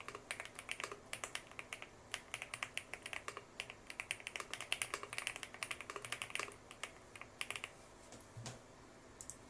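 Typing on a Lucky65 V2 gasket-mount mechanical keyboard with HMX Purple linear switches, an FR4 plate and PC keycaps: fast runs of keystrokes, several a second. The keystrokes thin out about eight seconds in, with a single dull thump shortly after.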